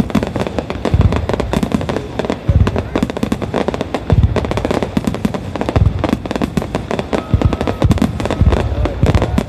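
A starmine fireworks barrage: dense rapid popping and crackling of shell bursts, with heavy low booms about once a second.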